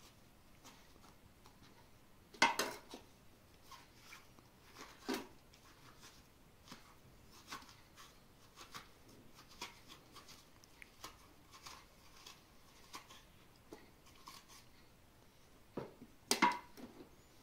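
Food-preparation handling sounds: scattered light clicks and knocks of utensils and dishes, with a louder clatter about two seconds in and another cluster near the end.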